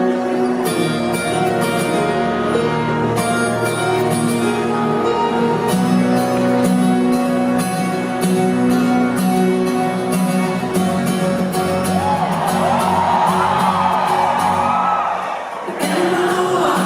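Live band playing a song's instrumental intro: held chords over a regular beat. From about twelve seconds in, audience whoops and voices rise over the music.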